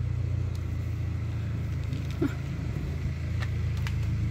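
An engine running steadily at idle, a low even hum, with a few faint clicks over it.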